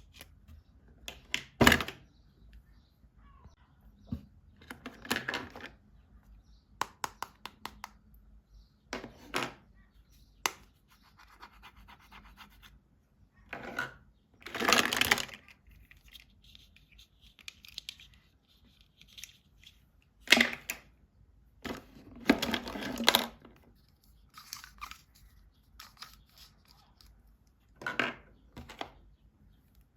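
Hands unboxing plastic toys: packaging rustling and tearing in short bursts, with scattered clicks and taps of plastic pieces being handled.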